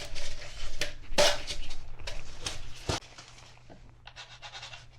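Vinyl plank being snapped by hand along its utility-knife score line: several sharp cracks and knocks in the first three seconds, then quieter rubbing and handling of the plank.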